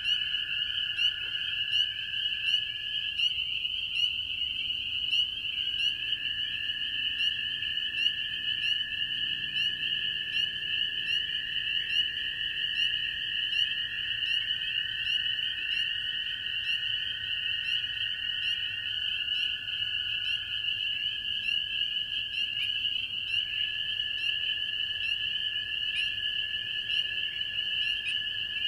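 A distant chorus of spring peepers calling, a continuous mass of high whistles, with American toads trilling under it. The toads give long, steady, lower-pitched trills lasting several seconds each, two or more overlapping at slightly different pitches, one breaking off and another starting up every so often.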